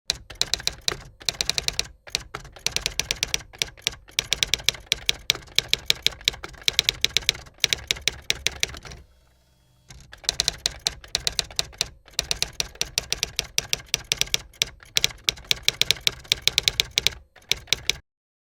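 Rapid typing clicks from a keyboard or typewriter, in quick runs with a pause of about a second midway, cutting off abruptly near the end.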